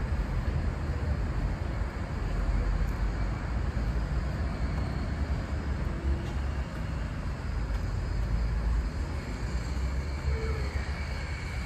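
Steady road-traffic noise with a continuous low rumble.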